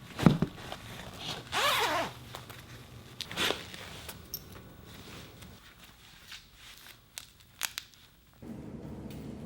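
Handling noises: a knock, a rasping scrape, another scrape and a few sharp clicks. A steady low hum starts near the end.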